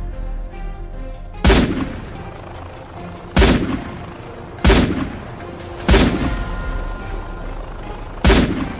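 Five gunshots, each a sharp crack with a short echoing tail, coming irregularly one to two and a half seconds apart over background music.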